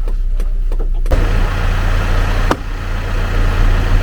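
An engine running steadily, with a sharp click about two and a half seconds in.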